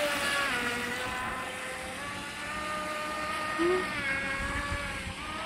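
Joysway Bullet RC speedboat's water-cooled 2815 1900KV brushless outrunner motor, on a 4S LiPo, whining steadily at speed across the water, the pitch shifting a little about four seconds in.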